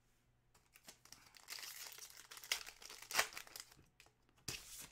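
Plastic wrapper of a Panini Chronicles football card pack crinkling as it is torn open and the cards are pulled out, with a few sharp crackles among the quieter rustling.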